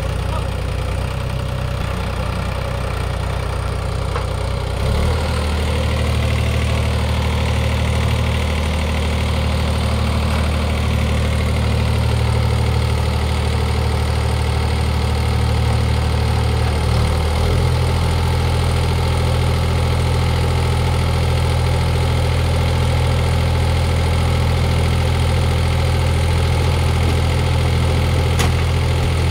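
New Holland 3630 tractor's three-cylinder diesel engine running steadily while powering the hydraulics that lift the infielder's bin. The engine note changes about five seconds in and again a little past halfway.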